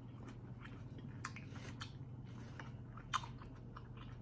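Mouth sounds of someone eating grapes, olives and small tomatoes: wet chewing with scattered soft clicks and squishes, over a steady low hum.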